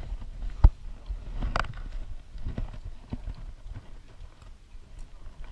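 Scattered knocks and bumps from someone moving about on a sailboat's deck, with one sharp knock, the loudest, about half a second in, over a low rumble.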